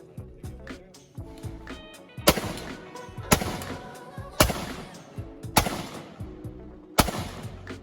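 .45-70 rifle fired five times, a little over a second apart, each shot sharp and ringing out, over background music.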